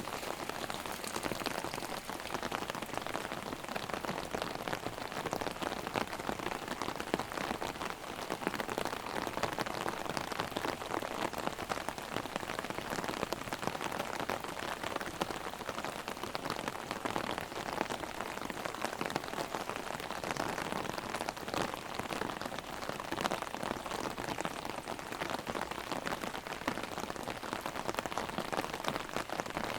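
Heavy rain hitting an umbrella held overhead: a dense, steady hiss of countless small drop hits that stays even throughout.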